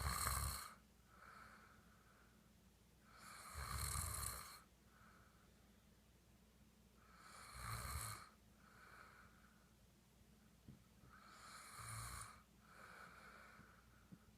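A sleeping man snoring, one snore about every four seconds, each followed by a softer breath.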